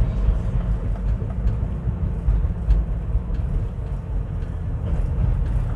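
Steady low rumble of a vehicle in motion on the road, heard from on board, engine and road noise with the sound wavering in loudness.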